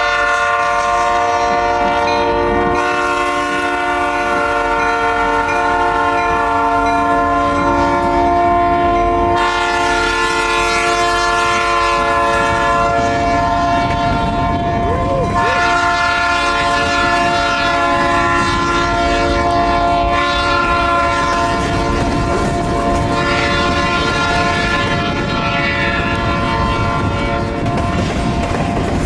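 Canadian National freight locomotive's chime air horn sounding several notes together, held almost without a break and shifting slightly in tone a couple of times, over the rumble of the passing train and strong wind on the microphone.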